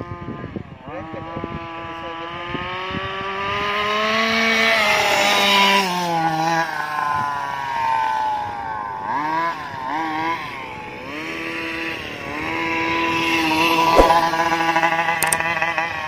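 Rovan Baja RC car's 32cc two-stroke petrol engine running and revving, its pitch rising and falling with the throttle, with short blips around the middle and a sharp click near the end.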